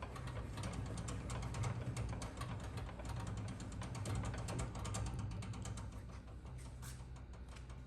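Table saw's blade-tilt handwheel being cranked, its gearing clicking and rattling rapidly and continuously as the blade is tilted to 45 degrees, over a steady low hum.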